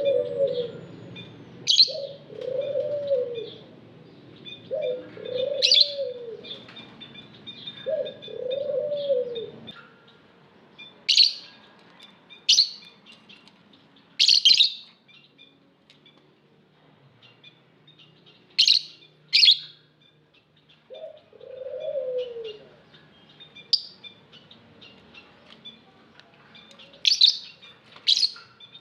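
Lovebirds chirping: sharp, shrill calls every few seconds over continual soft chattering. A lower call from another bird, each about a second long and falling away, repeats four times in the first ten seconds and once more about 21 seconds in.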